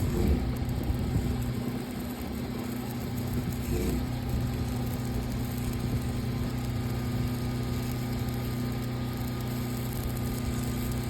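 An engine idling steadily with an even low hum, with brief clatters near the start and about four seconds in.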